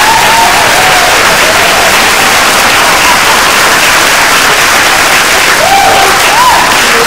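Audience applauding and cheering, with a few voices whooping over the clapping.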